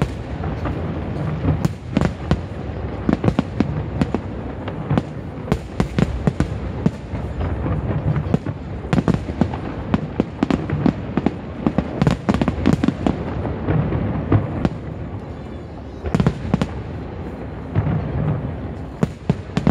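Aerial fireworks display: a dense, irregular string of loud shell bursts and crackling bangs, easing briefly about three-quarters of the way through before picking up again.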